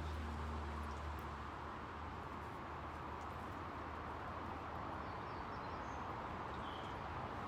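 Steady outdoor background noise, with a low hum that fades out about a second in and a few faint, high bird chirps near the end.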